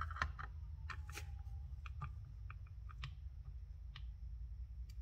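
Metal screwdriver tip clicking and scraping against a carburetor body while working at a stuck screw: scattered small sharp clicks over a steady low hum.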